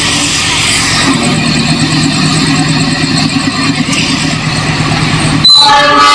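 Diesel locomotive of a loaded coal train approaching, its engine running with a loud, steady drone. About five and a half seconds in, the locomotive's horn comes in suddenly, a loud, steady chord of several tones.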